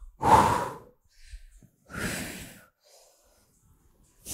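A woman breathing hard from exertion during a weighted leg exercise: loud, forceful exhales about two seconds apart, the last starting right at the end.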